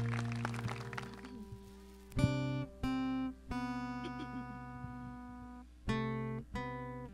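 Acoustic guitar playing slow, separate strummed chords, each left to ring for about a second before the next, as the instrumental opening of a song.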